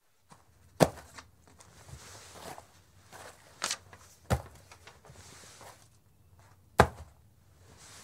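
Leather tobacco pouch being handled and tossed: soft leather rustling broken by four sharp smacks, the loudest about a second in and near the end.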